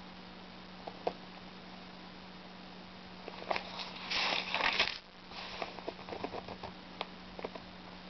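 Paper of an old book's pages rustling and crackling as a hand handles and turns a page, with a loud rustle about four seconds in and small crackles around it. A steady low hum runs underneath.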